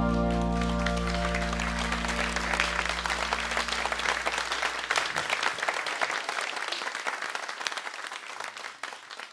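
The last chord of a slow country love song rings out and fades, while an audience applauds. The clapping swells from about a second in and dies away near the end.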